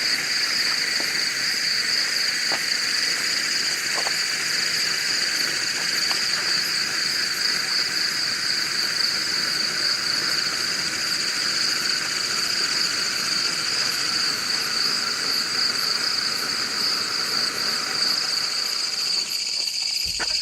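Handheld red-flame pyrotechnic flare burning with a steady hiss that cuts off about a second before the end as it burns out, over a continuous high trill of insects.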